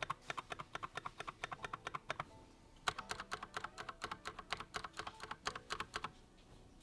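Mechanical keyboard keys being pressed in rapid runs of sharp clicks, a quick burst, a short pause a little after two seconds in, then a longer burst, played to show stabilizer rattle.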